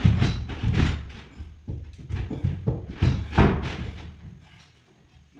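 A run of irregular heavy thuds and knocks on wood, each with a dull low thump, fading out near the end.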